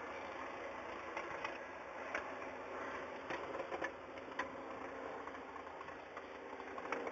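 Tractor engine running steadily, heard from inside the cab, with a few short clicks and rattles now and then.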